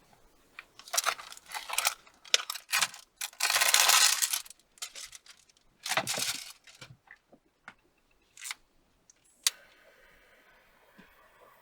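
Rustling and clattering of small objects being handled in a cramped space, with one louder rasping noise lasting about a second around four seconds in, and a few light clicks later.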